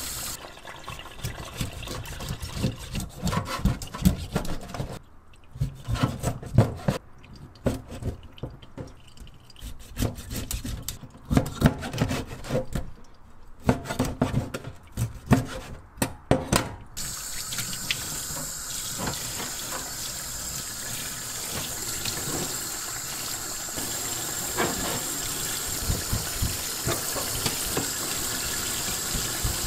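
Water running from a kitchen tap into a stainless-steel sink while fish is rinsed. In the middle come scattered knocks and scrapes of a knife cutting fish on a plastic cutting board. The last dozen seconds are a steady run of water.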